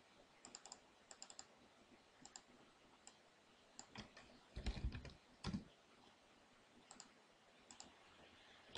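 Faint clicks from a computer keyboard and mouse: scattered key presses and mouse-button clicks, with a short cluster of louder clicks about halfway through.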